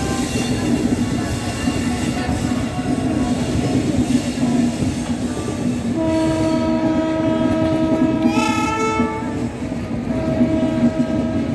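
Passenger train coaches rolling past close by, their wheels rumbling steadily over the track. About halfway through a train horn sounds for roughly three seconds, and a shorter horn note follows near the end.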